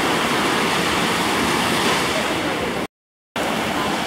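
Surf breaking and washing up on a sandy beach: a steady rush of waves. The sound cuts out completely for about half a second near the end, then comes back.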